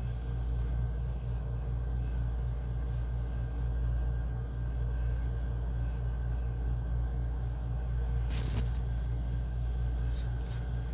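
A steady low hum with an even pulsing throb, and a couple of brief rustles near the end.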